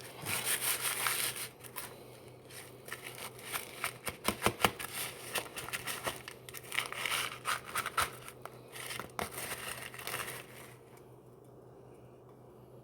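Plastic snack bag of crunchy Cheetos being handled, crinkling and rustling with irregular sharp crackles, dying away about eleven seconds in.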